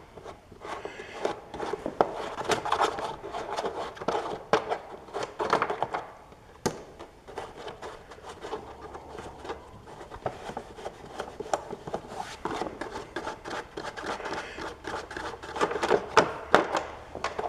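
Irregular clicks, scrapes and rubbing of hand work as the two fasteners holding a riding mower's air cleaner cover are taken off. There is a sharp click about seven seconds in and a busier run of clicks near the end.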